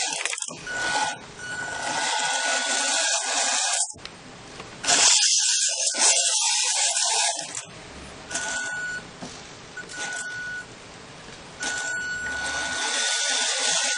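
Electric drive of a remote-control model truck whirring in short runs that start and stop several times, with a steady high whine while the motor runs.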